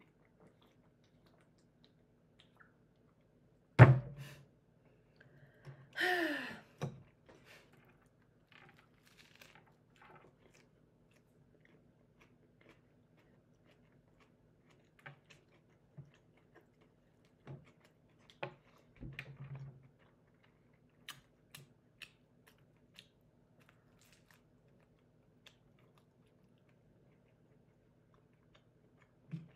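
Sandwich being eaten: faint, scattered chewing and crunching. A single thunk on the table about four seconds in, and a short vocal sound falling in pitch a couple of seconds later.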